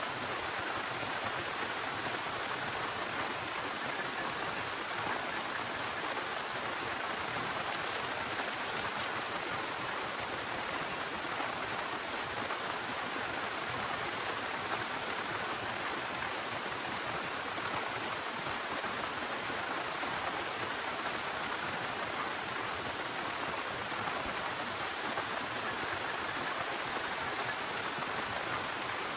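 Heavy rain pouring steadily, with a few faint drop ticks.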